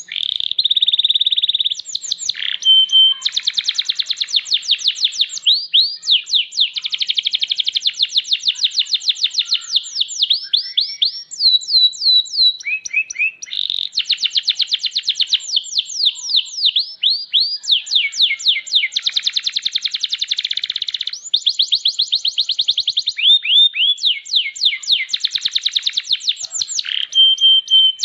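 Domestic canary singing a long, continuous song of fast trills and rapidly repeated sweeping notes, phrase after phrase with only short breaks between.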